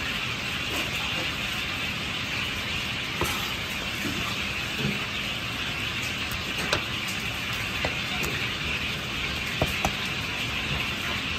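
Chinese cleaver slicing raw chicken breast on a plastic cutting board, the blade giving a few sharp taps on the board at irregular intervals. Under it runs a steady rushing kitchen noise.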